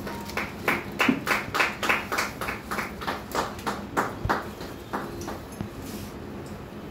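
Hands clapping in a steady rhythm, about three claps a second, dying away about five seconds in.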